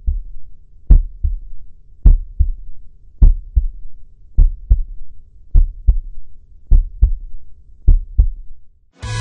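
Heartbeat sound effect: a slow, even lub-dub, a pair of deep thumps a little over once a second. It stops near the end, where rock music with guitar cuts in.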